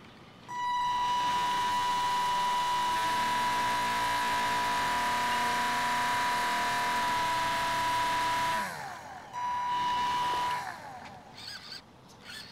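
Motor of a radio-controlled plane converted into a boat, driving a propeller on a long shaft: a steady high whine with other pitches shifting as the throttle changes. It starts about half a second in, cuts off after about eight seconds, then gives a second short burst a moment later.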